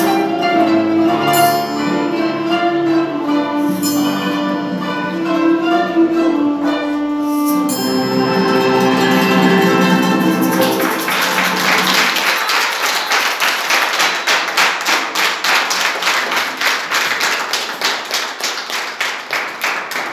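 A small ensemble of qanons, piano and duduk plays the closing bars of a piece, which ends about ten seconds in. Applause follows and carries on to the end.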